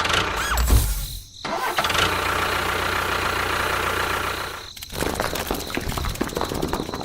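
Small motor running steadily, cutting out just under five seconds in, then coming back unevenly.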